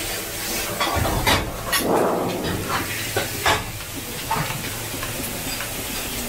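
Stir-frying in a wok over a gas burner: food sizzling and hissing, with a louder hiss about two seconds in and scattered sharp clacks of the utensil against the wok.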